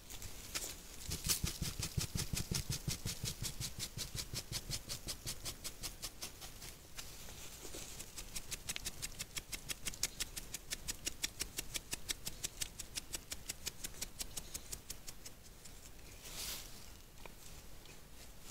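European badger scratching in fast, even strokes, several a second, close to the microphone, with a brief break about seven seconds in.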